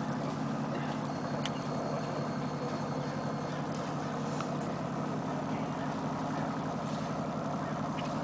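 A boat engine idling steadily with an even low hum and a few faint ticks.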